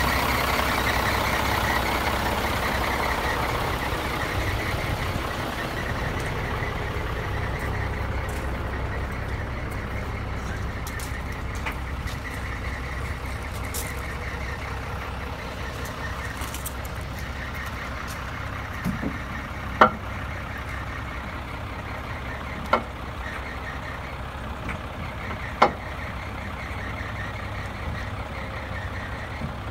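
Scania truck's diesel engine running steadily at idle, with a few sharp metal clunks in the second half as the folding tail lift is let down and opened out.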